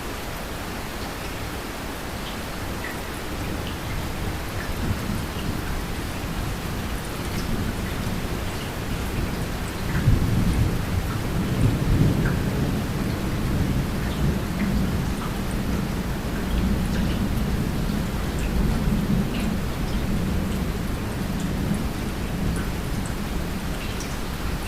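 Steady rain with thunder: a low rumble swells about ten seconds in and rolls on for most of the rest, over the hiss of the rain and scattered drop ticks.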